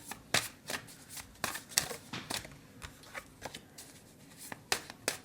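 Tarot cards being shuffled and handled: a string of crisp, irregular snaps and flicks, two or three a second.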